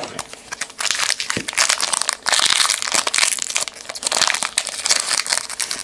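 Crinkling wrapper of a trading-card pack, crackling steadily as hands grip and work it open, starting about a second in.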